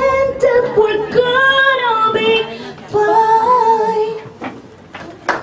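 A woman singing a ballad into a handheld microphone, holding long notes with a wavering vibrato; her last held note dies away about four seconds in.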